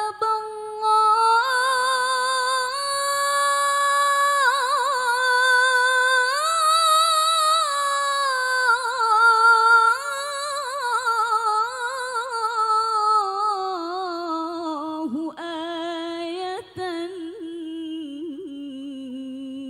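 A woman singing a sholawat solo into a microphone, unaccompanied: one long drawn-out melisma of held notes with quavering ornaments, gliding lower in pitch over the second half.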